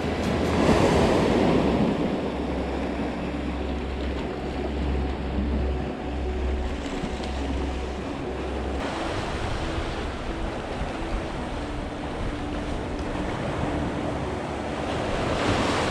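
Sea surf washing and breaking against rocks, with wind on the microphone; a wave surges loudest about a second in.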